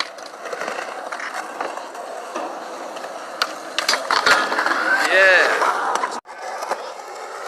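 Skateboard wheels rolling on concrete, with scattered clacks and knocks of boards, busiest and loudest between about four and six seconds in.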